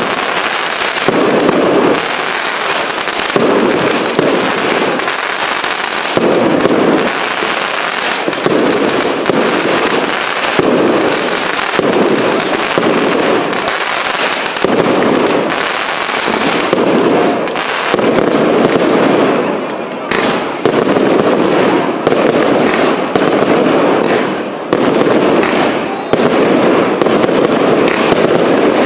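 Professional fireworks display: a continuous barrage of aerial shell bursts and crackling stars, with deeper bursts coming roughly once a second.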